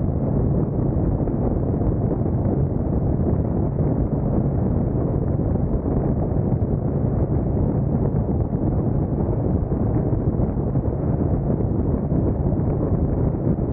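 2021 Harley-Davidson Street Glide Special's Milwaukee-Eight 114 V-twin running steadily at highway cruising speed, about 85 mph, under a constant rush of wind noise on the microphone.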